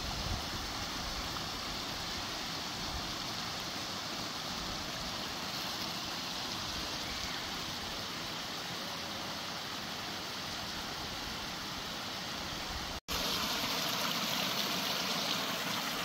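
Small woodland stream trickling and running over leaf litter and twigs, a steady rush of water. About thirteen seconds in the sound drops out for an instant and comes back a little louder and brighter, as water tumbling down small rocky steps.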